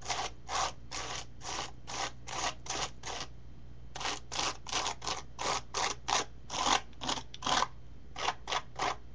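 Repeated scraping strokes of a tool dragging graphite texture paste across a grid stencil on canvas, about two or three strokes a second with a short pause about three seconds in. A scratchy sound like nails on a chalkboard.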